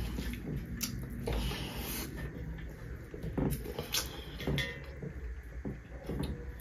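Eating by hand: fingers mixing and scooping rice on metal plates, with chewing and scattered light clicks and rustles over a low steady hum.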